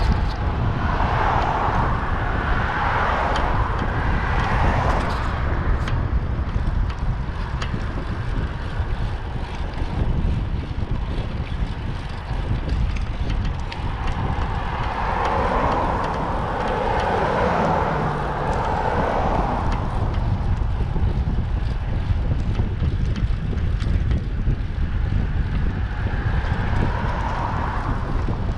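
Wind buffeting a bike-mounted microphone while riding, a steady low rumble, with passing car tyre noise swelling and fading several times: about a second in, around the middle, and faintly near the end.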